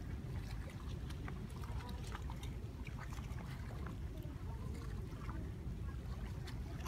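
Small waves lapping and trickling against shoreline rocks, with many scattered light splashes and ticks over a steady low rumble of wind on the microphone.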